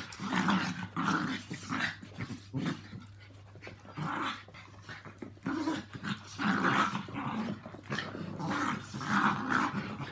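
Small dogs, Yorkshire terriers and a Maltese, growling in rough play: repeated short growls in clusters, easing off for a few seconds partway through. The growling is play, not aggression.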